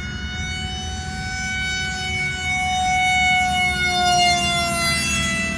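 Electric motor and propeller of a foam-board RC F-18 model plane in flight: a steady high whine with several overtones. It grows louder and rises slightly in pitch as the plane comes close, then drops in pitch about four and a half seconds in as it passes.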